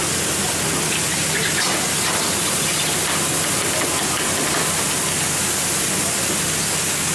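Steady, dense rush of water jets from a pole-and-line fishing boat's sprinklers spraying onto the sea surface, with a low steady hum of the boat's machinery beneath.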